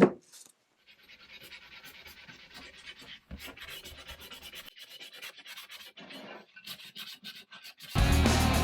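Sandpaper rubbed by hand over the metal sole of a vintage hand plane, a quiet, scratchy, rapid rubbing. Loud guitar music cuts in near the end.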